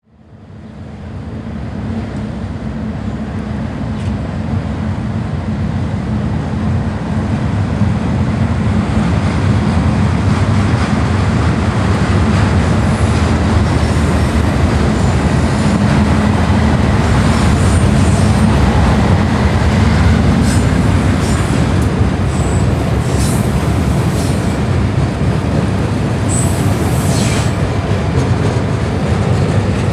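Freight train passing: Norfolk Southern diesel locomotives with a steady low rumble, then autorack cars rolling by on steel rails. From about two-thirds in, short high-pitched wheel squeals cut through the rolling noise.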